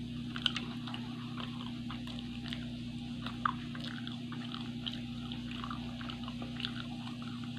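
Close-up eating sounds: chewing and small crisp crackles as fried chive-filled rolls are bitten and torn apart by hand, with a couple of sharper clicks. A steady low hum runs underneath.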